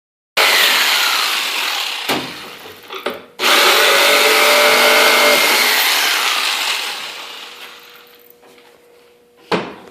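Electric power saw cutting plywood, running in two bursts with a short break about three seconds in. The second run fades slowly as the motor winds down. A sharp knock comes near the end.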